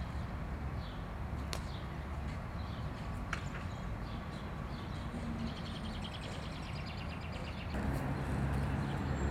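Outdoor ambience: a steady low rumble of wind and distant traffic, with a few faint bird chirps.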